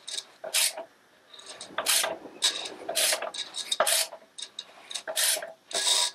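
Flywheel of a Triumph 1296 cc engine turned by hand in short pushes, a scraping rub on each push, several times over, while its run-out is checked with a dial gauge.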